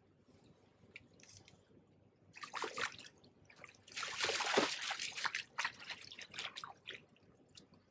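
A hooked barbel splashing in the shallows as it is scooped into a landing net: one splash about two and a half seconds in, then a louder burst of thrashing from about four seconds in that dies away in smaller splashes.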